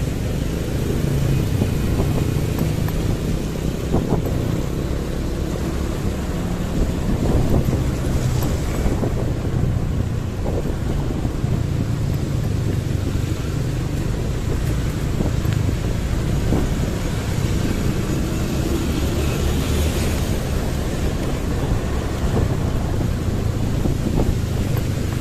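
Motorcycle on the move: a steady low rumble of engine and road noise, with wind buffeting the microphone.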